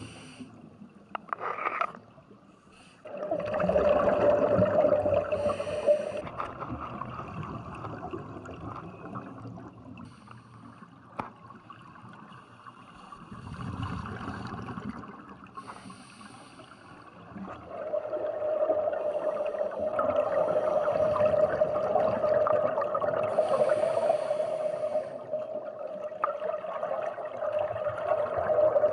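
Underwater sound of scuba breathing: exhaled regulator bubbles gurgling and bursting at intervals. A steady hum sounds for a few seconds about three seconds in, then returns and holds through the second half.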